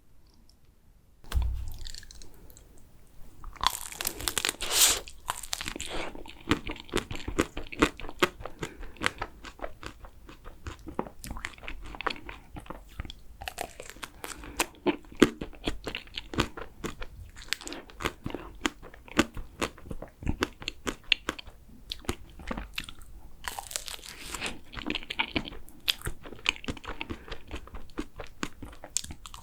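Close-miked eating sounds: someone biting into and chewing vanilla and chocolate soft-serve ice cream, with moist clicking chews and a few louder crunchy bites.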